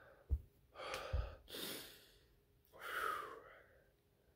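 A man breathing hard, with three heavy exhales and sighs about a second apart, out of breath from a plank hold. A short low thump comes just before the first breath.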